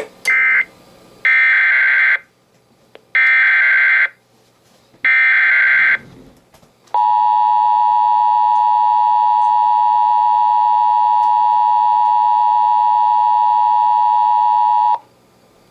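Emergency Alert System signalling. A short data squawk comes first, then three one-second bursts of screeching digital header data, then the steady attention tone, held for about eight seconds and cut off sharply. The tones announce an incoming severe weather warning.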